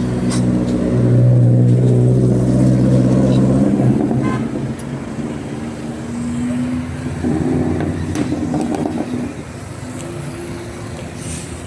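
Indonesian bus 'telolet basuri' horn sounding a long, loud steady note for the first four seconds, then softer held notes at other pitches. Bus engine noise runs beneath.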